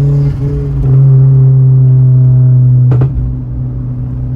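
Turbocharged 1.0 Volkswagen Gol G6 engine pulling, heard from inside the cabin as a loud, steady low drone. About three seconds in a single sharp exhaust pop cracks and the engine note drops.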